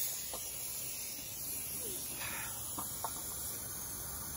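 Steady hiss of compressed air being let out of a Handy Industries BOB 1500 air lift to lower it, with a few light clicks.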